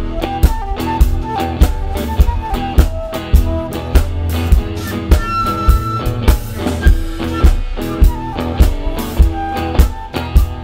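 Live rock band playing an instrumental passage: drum kit keeping a steady beat of about two hits a second, with electric bass, keyboard and electric guitar. A high note is held for about a second around the middle.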